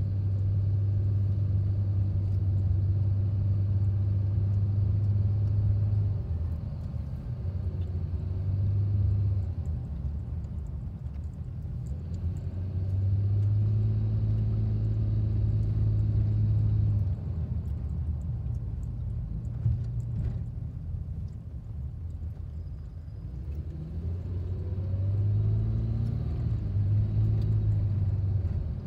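Inside a moving car: low rumble of the engine and road noise, swelling and easing as the car speeds up and slows down in traffic, with a rising pitch about three-quarters of the way through as it accelerates.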